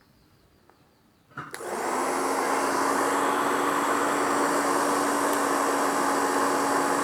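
A switch clicks about a second and a half in, and a Chaoba 2800 2000-watt hair dryer starts up, its fan coming up to speed within half a second, then runs with a steady rush of air and a steady hum.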